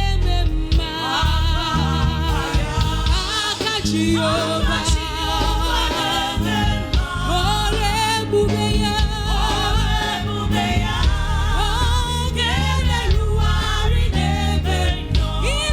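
Gospel praise and worship music: several voices singing with vibrato over a band with steady bass.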